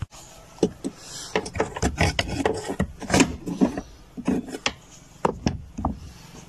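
Irregular clicks, knocks and scraping of an extended screwdriver working at the mounting screws of a top-loading washing machine's gearbox from underneath, loosening the old, hard-to-remove unit.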